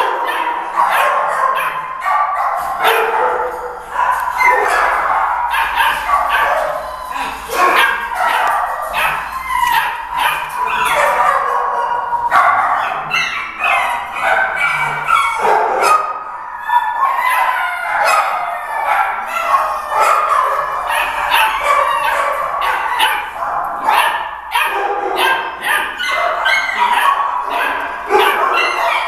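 Several dogs barking and yipping over one another without a break.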